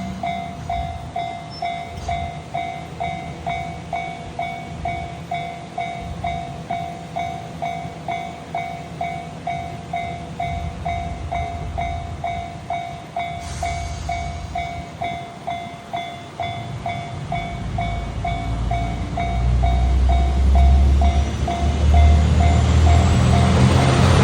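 Japanese level-crossing warning bell ringing steadily, just under two strikes a second. From about 17 s a Matsuura Railway diesel railcar approaches: its engine and wheel rumble grow loud over the last few seconds, with a rising high whine.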